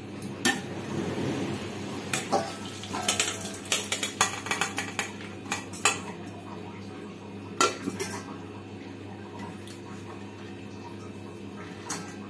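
Metal kitchenware clanking and clinking as an aluminium pressure-cooker pot is tipped over a stainless-steel strainer and bowl, pouring out boiled amla (Indian gooseberries) and their cooking water. The clinks come thickest between about three and six seconds in, with two more knocks near eight seconds, and then it goes quieter.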